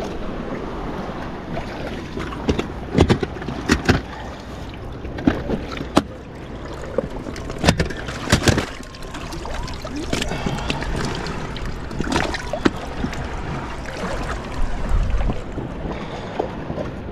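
Shallow water sloshing and splashing around an inflatable boat as it is waded and pushed off. Scattered sharp knocks and clicks come from handling the hull, the outboard's fin and the launch wheels. The outboard motor is not running.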